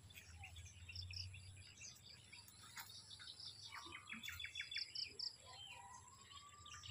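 Faint small birds chirping outdoors: short high chirps repeat throughout, a quick run of ticks comes about four seconds in, and a long note rises and then holds near the end.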